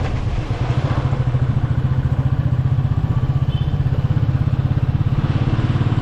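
Royal Enfield Classic 350's single-cylinder engine running with a steady, rapid, even beat.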